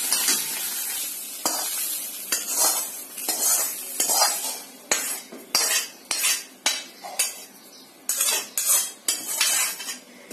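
Steel spoon scraping fried soya chunks out of a kadhai and onto a steel plate, in a run of separate scrapes and clinks, over a sizzle of hot oil that fades out in the first few seconds.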